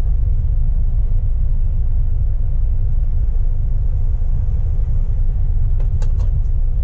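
Steady low rumble of a Volvo semi-truck's engine and road noise, heard inside the cab at highway speed. A few short clicks or rattles come about six seconds in.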